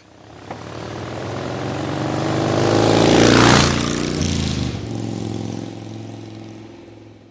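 Engine of a passing vehicle: it grows louder, peaks about three and a half seconds in with a drop in pitch as it goes by, then fades away.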